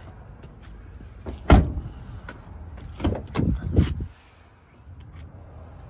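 Doors of a 2015 Ram 2500 pickup: one loud bang about one and a half seconds in as the rear door is shut, then a cluster of clunks and clicks between three and four seconds in as the driver's door is unlatched and opened.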